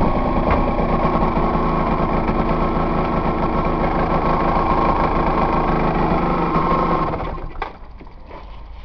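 Aprilia RS125's single-cylinder two-stroke engine running steadily at an even pitch, heard from a helmet-mounted camera; about seven seconds in the engine sound stops, leaving a few faint knocks.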